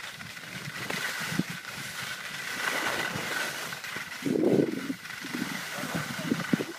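Skis sliding and scraping over packed snow while skiing downhill, a steady hiss with louder low rushes of wind buffeting the microphone about four and a half seconds in and again near the end.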